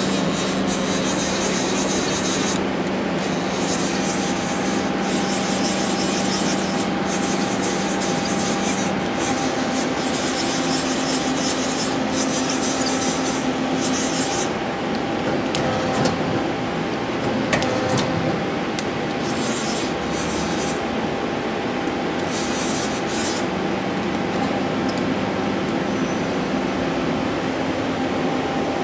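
1997 Amera Seiki TC4L CNC turning center running while its axes are jogged: a steady machine hum and hiss, with tones that start and stop as the slides move.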